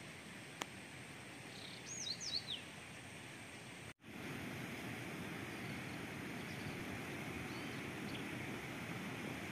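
Steady outdoor background noise with a bird giving a few quick whistled chirps about two seconds in. The background breaks off for an instant about four seconds in and comes back a little louder, with a faint bird call near the end.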